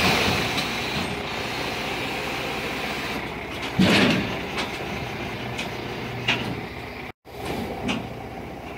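Diesel engine of a tilt-deck container-hauling semi truck running close by, a steady mechanical drone, with a short louder burst of noise about four seconds in.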